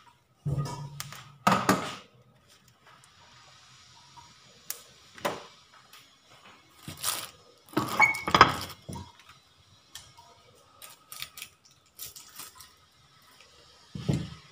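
Scattered knocks and clatter of a frying pan and kitchen utensils being handled on the stove, the loudest cluster about halfway through.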